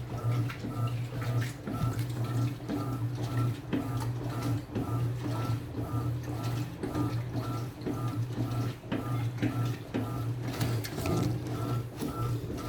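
Electrolux Essential Care LES09 washing machine running: a steady low hum with a faint higher tone pulsing about twice a second.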